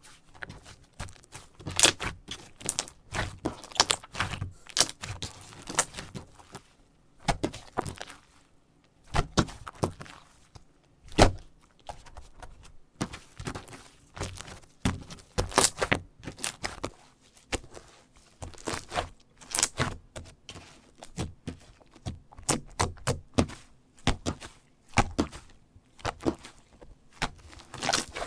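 Jiggly slime being squished and pressed by hand: irregular sticky clicks and pops coming in quick clusters, with short pauses between them.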